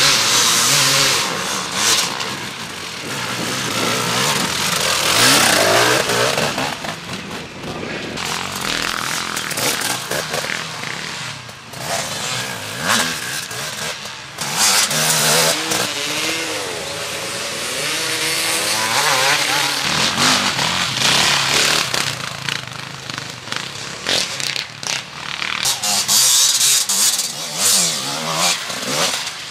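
E3-class enduro motorcycles racing past on a dirt test track, engines revving up and dropping back through the turns, one bike after another with the sound swelling and fading as each passes.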